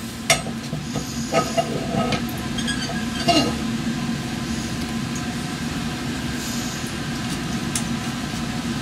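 Steady hum of a fume hood's exhaust airflow, with a few sharp clinks and knocks of glassware and metal clamps as a Hickman column and water condenser are lowered and fitted onto a conical vial. The loudest clink comes about a third of a second in, with more around one and a half and three and a half seconds in.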